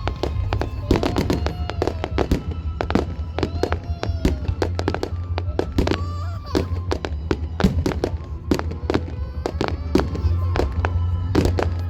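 Fireworks display: many sharp bangs and crackles going off in quick succession, over music playing steadily underneath.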